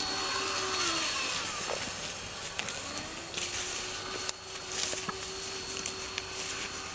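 Rustling and crackling of handling in grass cover, over a steady hum that fades out about a second in and comes back with a rising start about three seconds in.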